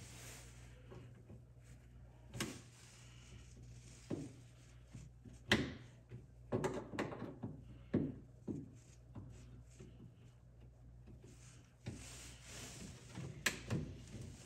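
Plastic trunk trim clip being pried and turned loose with a small tool: irregular clicks, knocks and scrapes of plastic, bunched in the middle, over a steady low hum.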